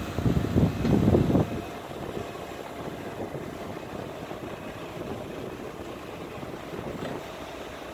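Hyster forklift's engine revving hard for about the first second and a half while the forks lift a heavy timber beam, then dropping back to a quieter, steady run.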